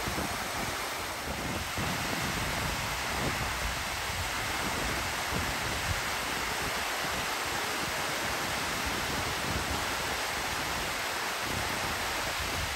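Waterfall cascading down a rock face: a steady rush of falling, splashing water.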